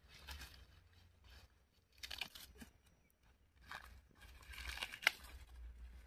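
Cows pulling and tearing at fodder: four faint bursts of rustling, with a sharp snap about five seconds in.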